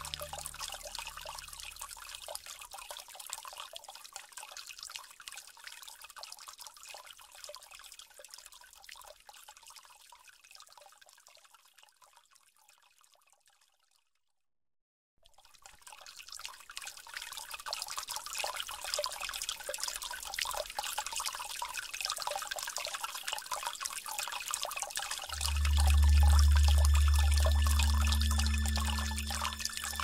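Background track of trickling, pouring water that fades out to silence about halfway, then fades back in. A deep, steady low tone comes in near the end.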